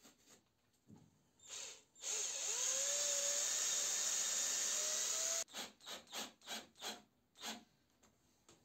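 Cordless drill driving a small screw into the wooden leg of a stand. It gives one brief blip, then runs steadily for about three seconds with its motor pitch rising, then finishes with about six short trigger bursts as the screw is seated.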